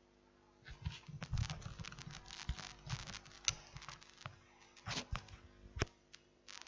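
An irregular run of clicks, taps and rustling over a faint steady hum. It starts about half a second in and thins out near the end.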